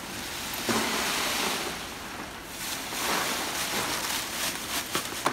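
Shelled peanuts poured out of a plastic bag onto a wide cloth-lined tray: a rushing, rattling hiss of kernels with the bag rustling, louder in two swells, and a few sharper clicks near the end.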